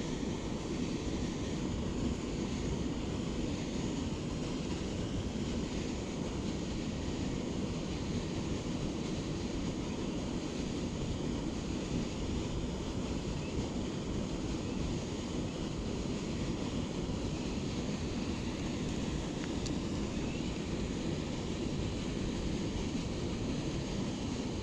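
Steady outdoor wind noise buffeting the microphone, an even rushing hiss with no distinct events.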